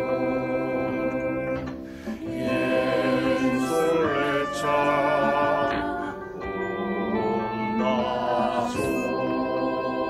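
Mixed choir of men's and women's voices singing a slow song in Esperanto over instrumental accompaniment, holding long notes in harmony, with short breaks between phrases about two and six seconds in.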